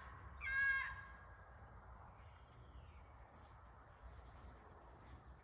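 One loud, high animal scream with a sharp, dipping-then-level pitch about half a second in, one of a run of repeated screams that the person filming thinks involve a fox. Crickets or other insects drone steadily on one high note through the rest.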